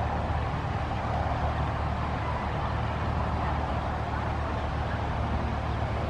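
Steady outdoor background noise: a constant low rumble under an even hiss, with no distinct events.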